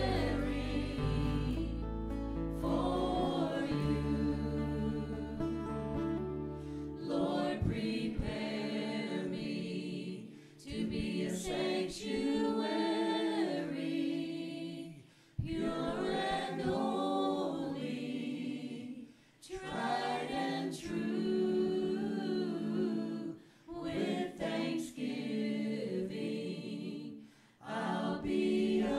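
A church worship team of men and women singing a slow chorus. A bass line backs them for about the first seven seconds, then drops out, and the voices carry on unaccompanied with short breaks between phrases.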